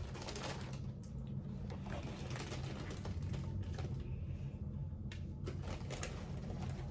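A chip bag crinkling and rustling as chips are scooped out by the handful, with small clicky crackles of the chips, over a steady low hum.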